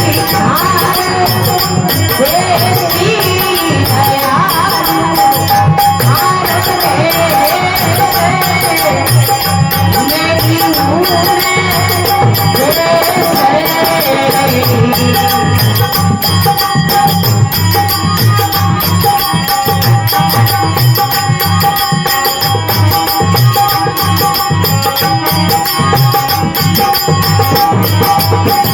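Rajasthani devotional folk song: a woman's sung melody over a steady held drone tone and a regular percussion beat with jingles. The voice fades out about halfway through, leaving the instruments playing on.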